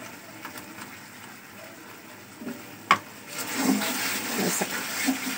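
A silicone spatula knocks once against a nonstick kadhai about three seconds in, then stirs a thick syrupy fig mixture with a wet, sloshing scrape.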